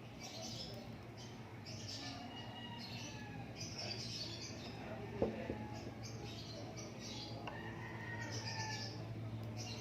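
Small birds chirping and twittering in quick repeated calls over a steady low hum, with a single sharp click about five seconds in.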